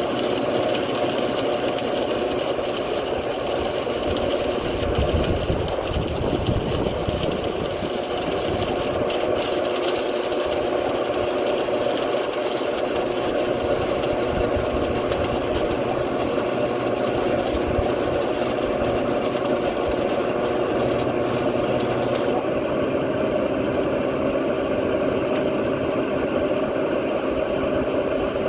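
Lincoln Idealarc 250 transformer welder running under heavy load, drawing about 40 amps from the mains: a steady transformer hum with a hissing, crackling noise over it. About 22 seconds in the load comes off and the hiss falls away, leaving the welder idling with its hum.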